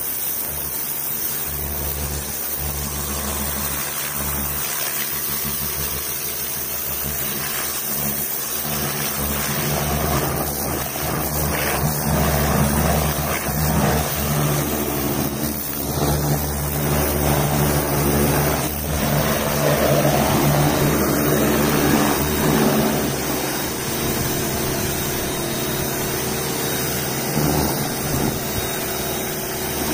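Sun Joe electric pressure washer running: a steady motor and pump hum under the hiss of the high-pressure spray as it strikes the tire, wheel and door panel. The sound is louder for a stretch in the middle.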